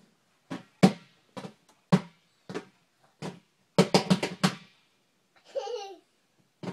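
Hands slapping a large inflated exercise ball: single drum-like smacks about half a second apart, then a fast run of about six slaps around four seconds in. A child's short vocal sound near the end.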